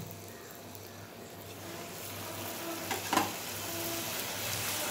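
Poori deep-frying in hot oil in an aluminium kadai: the sizzle builds steadily as the dough fries and puffs. There is a single knock about three seconds in.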